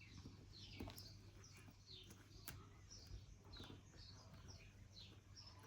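Near silence, with a bird's short, falling chirps repeating faintly in the background and a few faint clicks.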